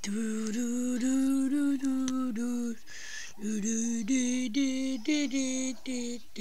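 A voice singing a wordless tune in short held notes at a fairly steady pitch, with a brief pause about halfway.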